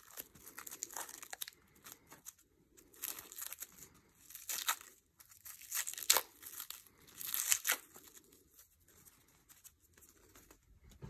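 Thin clear plastic wrap being peeled off a small clear block by hand, crinkling and tearing in irregular crackling bursts every second or two.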